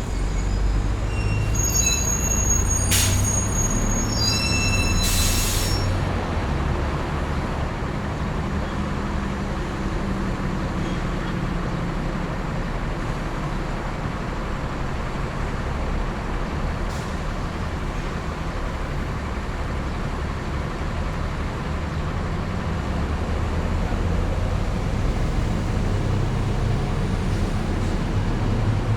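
Busy city street traffic: a steady rumble of passing vehicles. In the first few seconds a high-pitched brake squeal rings out, and two short hisses come about three and five seconds in.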